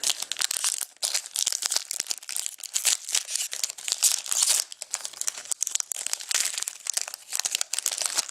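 Plastic packaging crinkling and rustling as hockey trading cards are handled, in dense irregular crackles that go on throughout.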